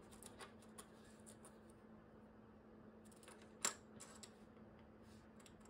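Faint clicks and taps of small 3D-printed plastic parts being handled: a magnifier pushed into its plastic holder, with one sharper click about three and a half seconds in. A faint steady hum underneath.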